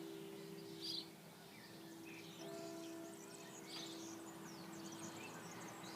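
Church bells ringing, their humming tone hanging on with a fresh strike about two and a half seconds in. Birds chirp over it.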